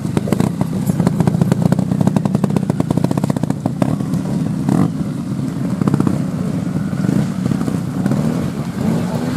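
A trials motorcycle's single-cylinder engine running hard with rapid, even firing pulses as it climbs over rocks, then dropping to lower revs after about four seconds.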